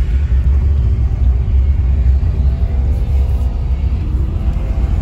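The Oldsmobile Starfire's six-cylinder engine running under way, with road rumble, heard from inside the cabin. A deep steady rumble, with the engine note rising near the end as the car speeds up.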